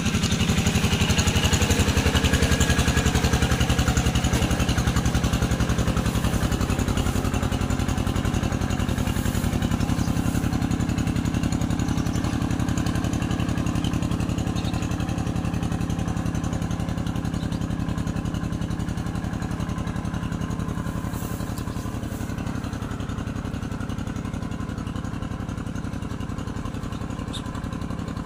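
Tractor engine running steadily while plowing a rice paddy, slowly getting quieter over the stretch.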